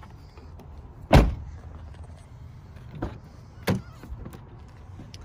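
A car door on a 1995 Buick Roadmaster station wagon shuts with a heavy thud about a second in. Two lighter knocks follow about two seconds later.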